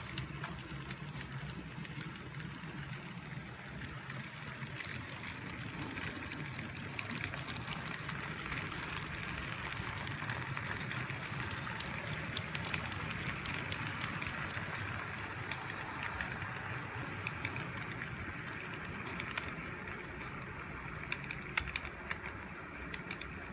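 Model train running on a layout: a steady whir from the locomotive and wheels on the track, with scattered light clicks.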